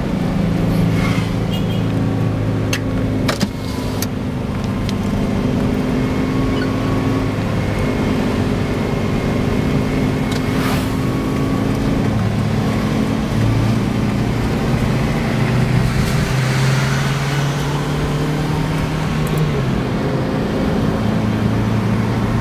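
Daihatsu Xenia 1.3 manual's four-cylinder engine pulling steadily uphill, heard inside the cabin. Its note changes pitch about midway and again near the end, with a few short clicks in the first few seconds.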